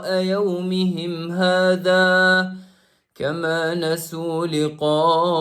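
A man reciting the Quran in a slow melodic chant, with no music or sound effects, holding long drawn-out notes. The voice stops for a breath about three seconds in, then resumes.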